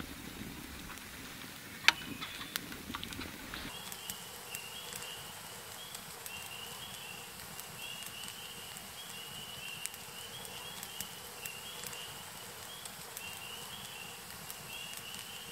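Quiet woodland ambience with a few sharp clicks in the first seconds. Then, after about four seconds, a steady series of short, high-pitched chirps repeats over and over.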